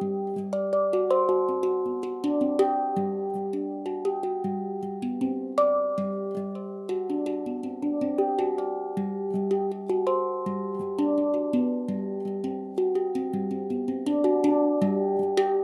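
Instrumental background music: a quick, continuous run of ringing pitched notes.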